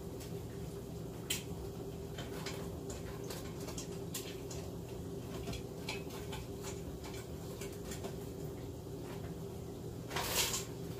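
Scattered light clicks and taps of kitchen items being handled at a counter, over a steady low hum. A louder half-second burst of hissing noise about ten seconds in.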